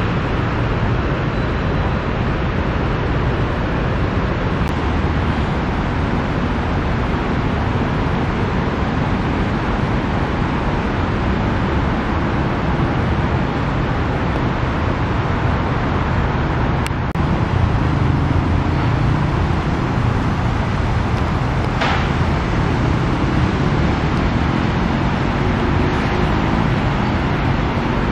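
Steady road traffic noise, vehicles running on rain-wet roads with a continuous tyre hiss and low engine rumble, growing louder about 17 seconds in.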